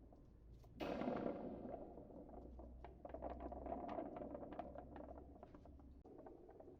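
A handmade sound object being played. It begins with a sudden rattling rush about a second in that fades, then keeps up a dense patter of small clicks.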